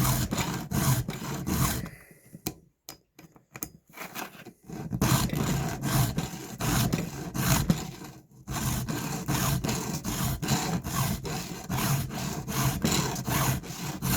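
A hand file rasping across a chainsaw chain's cutters in quick, even strokes, about three a second, sharpening the chain. About two seconds in the strokes stop for nearly three seconds with a few light clicks, then resume, with another brief pause past the middle.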